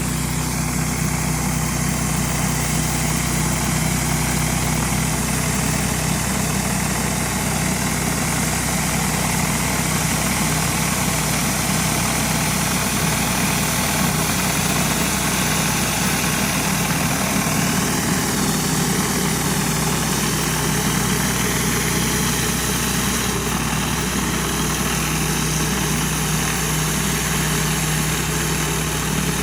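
Pressure washer's engine running steadily under load, with the even hiss of high-pressure water spraying from the surface cleaner.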